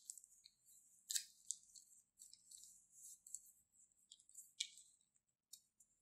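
Clear plastic piping bag crinkling and crackling as it is squeezed by hand, in irregular bursts with sharper crackles about a second in and again past four and a half seconds.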